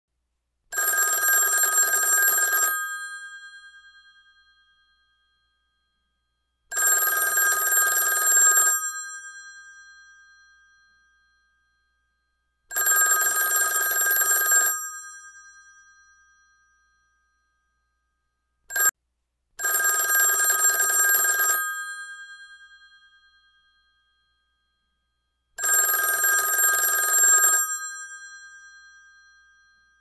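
Old telephone bell ringing: five rings of about two seconds each, roughly six seconds apart, each ring fading away after the striking stops. A very short clipped ring comes just before the fourth full ring.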